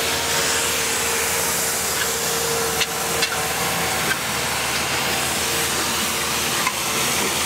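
Farm tractor engine running steadily as it pulls a disc harrow through a plowed field, under a steady hiss. There are a couple of faint clicks about three seconds in.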